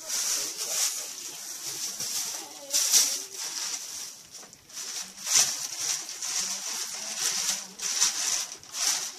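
Packaging rustling and crinkling as an item is handled and unwrapped, in irregular crackly bursts, the loudest about three seconds in and again a little after five seconds.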